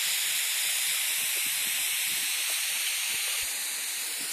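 Garden hose nozzle spraying a fine mist of water: a steady hiss.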